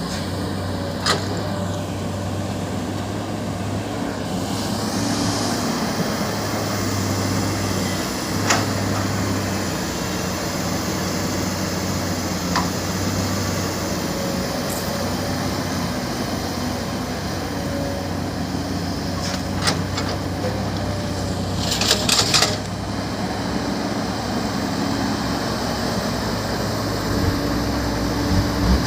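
Heavy diesel construction machinery running steadily, with a few sharp metallic knocks scattered through and a short burst of clanks about three-quarters of the way through.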